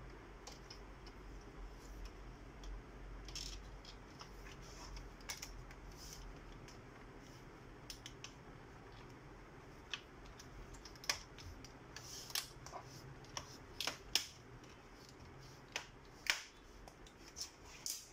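Plastic trim strip being pressed onto the metal chassis of an HP 400 G2 all-in-one PC, giving irregular sharp clicks and snaps as its clips seat. The clicks are sparse at first and come thicker and louder in the second half.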